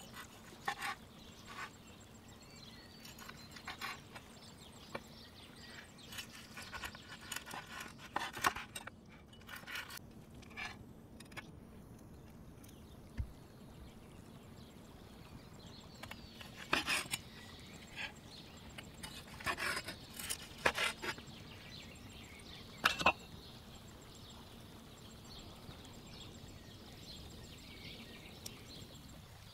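Cleaver and hands working roast pork with crispy crackling on a wooden cutting board: scattered crunches, taps and knocks, busiest about halfway through.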